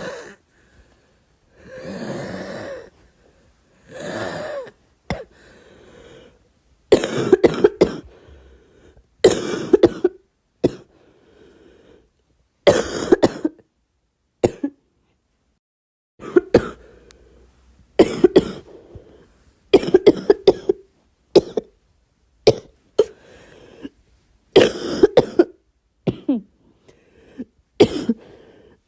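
A girl coughing over and over in bouts about every one to two seconds. The first few are softer and drawn out, and the later ones come as clusters of several sharp coughs.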